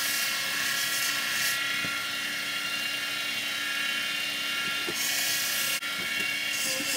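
Belt grinder running with a steady whine. A workpiece is pressed against the moving belt, giving a grinding hiss during the first second and a half and again around five seconds in.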